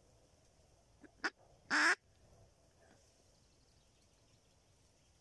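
Decoy mallard hen quacking twice: a short quack about a second in, then a longer, louder quack just after.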